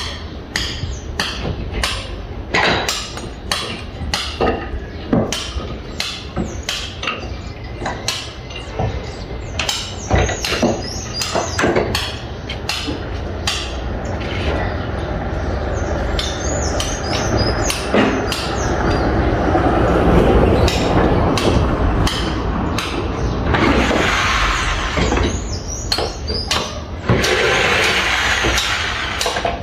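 Building-site hammering: a hammer driving nails in quick repeated blows, about two a second. In the second half the blows thin out under a steadier, louder noise from work on site.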